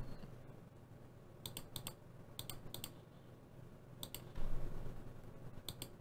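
Computer mouse button clicks: a series of sharp clicks, mostly in quick pairs, starting about a second and a half in. A brief soft rush of noise comes about four and a half seconds in.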